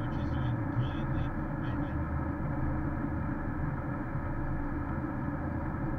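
Steady in-cabin road noise of a Porsche Cayenne S at highway speed on a snow-covered road: a low rumble of tyres and drivetrain with an even hiss over it.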